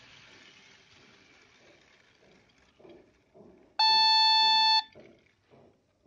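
LEGO EV3 rotors whirring as they spin down to a stop, followed by a few soft knocks. About four seconds in, a single steady electronic beep sounds for about a second and is the loudest thing heard.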